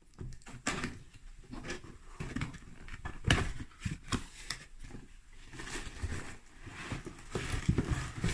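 A hair dryer's cardboard box being opened and its packaging handled: irregular clicks, knocks and rustles, with a sharper knock about three seconds in.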